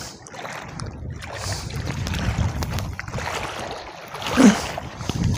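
Shallow water sloshing and splashing as a plastic bag is worked through it at the water's edge. A short pitched sound stands out about four seconds in.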